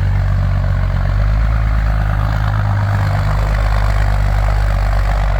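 Engine of a vintage Bombardier wide-gauge snow bus running steadily as the machine drives and turns on its skis, a loud, even low drone that shifts slightly in pitch about a second in.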